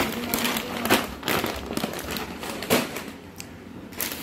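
Plastic snack-food pouches crinkling and rustling as they are handled and moved, with a few sharp crackles.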